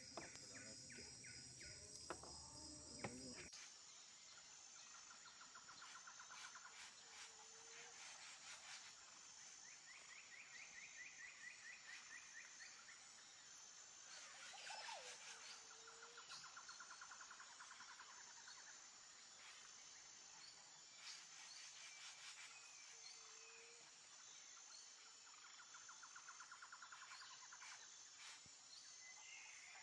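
Faint outdoor riverside ambience: a steady high insect drone with short trilled calls repeating every few seconds. A low background rumble cuts off about three seconds in.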